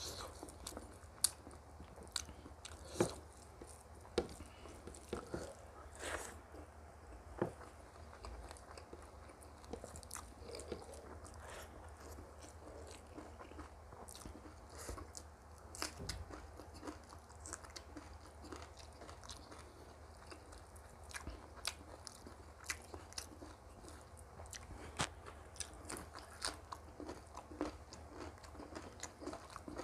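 Mouth sounds of a person eating a meal of rice with buffalo curry and radish pickle: fairly quiet chewing with irregular sharp crunchy bites.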